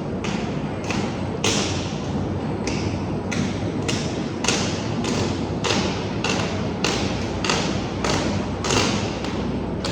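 Concrete pipe steel wire cage welding machine running: a sharp impact repeats evenly about every 0.6 seconds over a steady low machine hum.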